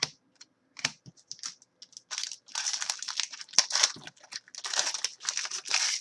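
Trading-card pack wrapper crinkling and tearing as a pack is opened by hand, after a few light clicks and rustles of card handling.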